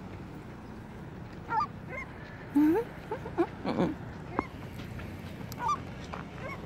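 Birds calling: a string of short cries whose pitch slides up and down, the loudest about two and a half seconds in, over a steady background rush.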